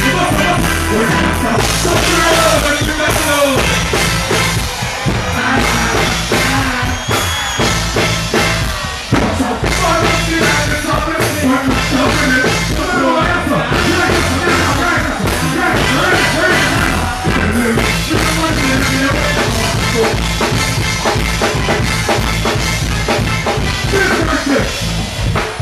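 Loud live dancehall music over a stage sound system, with a heavy pulsing bass line and a vocalist singing over the riddim.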